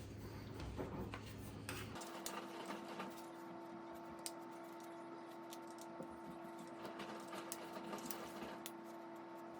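Faint, scattered plastic clicks and handling noise as a replacement ear pad is pressed and hooked onto a Bose QC35 headphone earcup.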